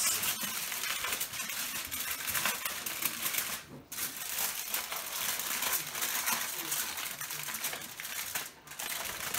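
Aluminium foil crinkling and crackling as hands fold and scrunch it into a parcel, pausing briefly twice.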